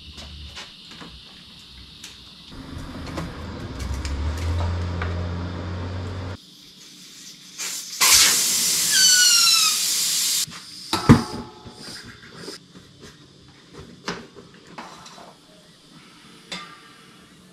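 Air hissing loudly out of a mountain bike tyre for about two and a half seconds, with a few short falling squeaks, as the tyre is let down. Scattered clicks and knocks of handling follow.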